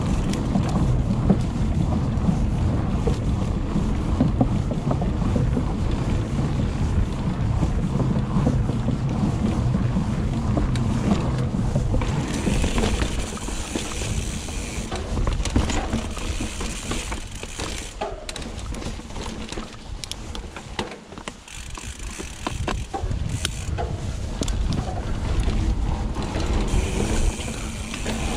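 Mountain bike riding on a dirt trail: wind rumble on the microphone and the rattle of the tyres and chain over the ground. From about twelve seconds in, the high buzz of a Hope Pro 4 rear hub freewheeling comes and goes as the rider coasts, with knocks from the bike over bumps.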